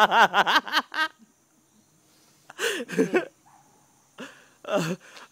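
A man's voice: talk for about a second, then a pause, then two short wordless vocal outbursts from a man reacting to the taste of durian.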